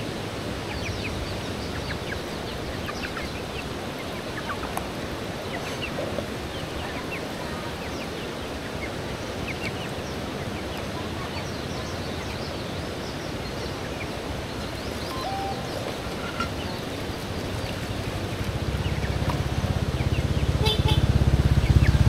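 Outdoor ambience: a steady hiss with scattered faint chirps and peeps from chickens and birds. In the last few seconds a low engine rumble grows louder as a vehicle approaches on the road.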